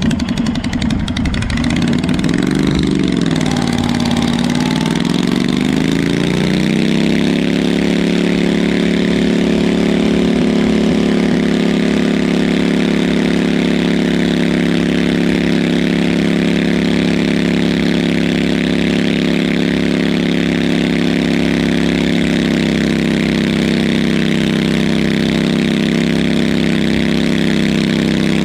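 Stock garden tractor engine revving up, dipping once, then held at a steady high speed as it pulls a stoneboat along a dirt track.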